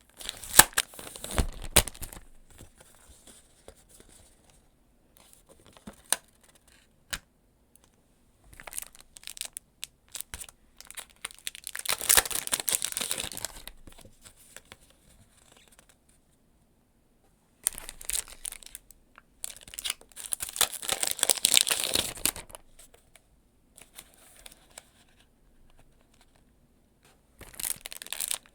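Packaging being crinkled and torn open by hand, in several bursts of crackling with quiet pauses between them.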